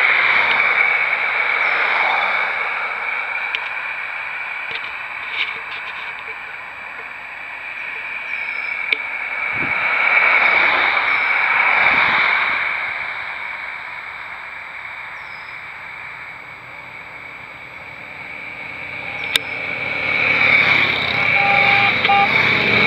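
Steady high-pitched insect drone, with broad rushing noise swelling up twice. Near the end a column of touring motorcycles approaches, their engines growing louder.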